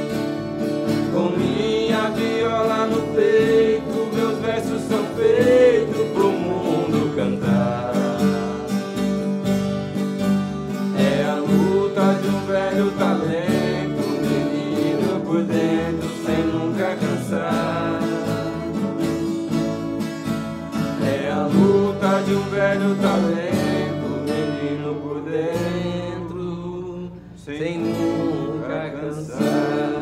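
Instrumental passage of a Brazilian caipira (country) song: two nylon-string acoustic guitars picking and strumming over an electric bass. It thins out briefly before the closing chords near the end.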